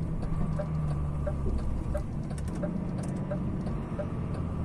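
DAF XF 480 truck's PACCAR MX-13 six-cylinder diesel engine running steadily, heard from inside the cab as a low drone, with faint light ticks repeating about three times a second.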